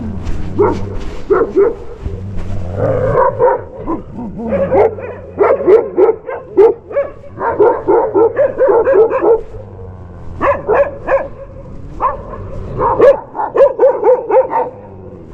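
Short, sharp animal calls repeated in quick runs of four to six at a time, several runs over.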